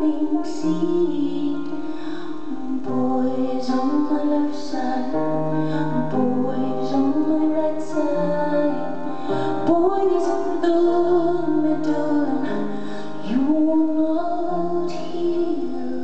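A woman singing with piano accompaniment in a live concert: sustained piano chords changing every second or so under a wavering sung melody.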